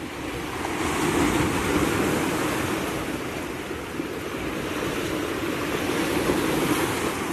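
Sea waves washing and splashing against a seawall in a steady rushing that swells about a second in and again near the end.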